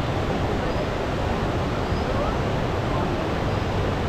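Steady rushing of a river flowing past, an even noise with no breaks.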